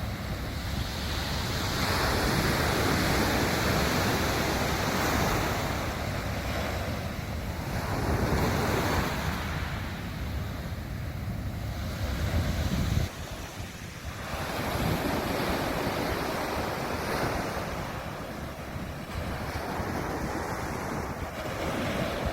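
Sea waves breaking on a beach, the surf swelling and washing back in surges every few seconds. A low wind rumble on the microphone runs under it and drops away about halfway through.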